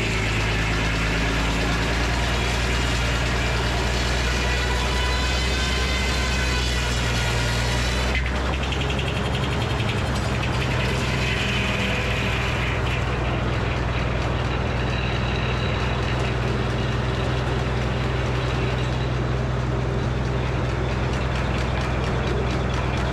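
Frick sawmill running steadily under power while milling a black walnut log: a constant engine drone with a high-pitched whine over it that changes about eight seconds in.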